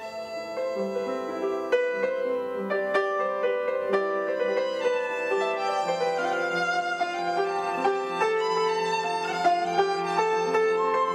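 Violin and upright piano playing together as a live duet, the piano sounding a busy stream of struck notes under the violin's line.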